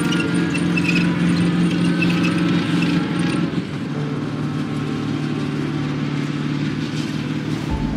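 Diesel engine of a tracked M270 rocket launcher running as the vehicle drives, with its note dropping slightly about three and a half seconds in.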